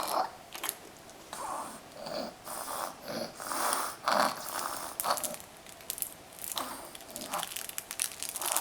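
A five-month-old infant's wheezy, snore-like breathing, a short rasp with each breath in quick succession: a 'happy wheezer', a baby who wheezes loudly while otherwise content.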